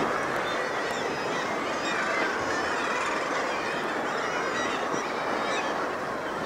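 Many short animal calls overlapping in a continuous chorus, over a steady wash of sea and wind noise.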